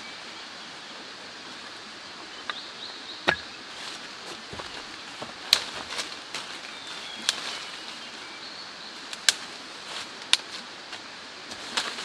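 Freshly cut leafy branches being handled and laid on the forest floor, with a few sharp twig snaps and cracks standing out over a steady background hiss.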